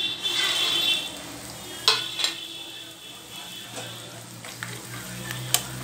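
Raw peanuts tipped from a plate into hot oil in a kadai, rushing in and sizzling as they start to fry. Sharp metal clinks follow about two seconds in and again near the end, under a steady faint sizzle.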